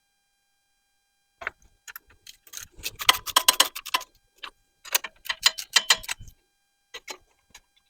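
Ratchet wrench clicking in several short runs of rapid ticks, with a few single clicks near the end, as the tractor battery is fastened in.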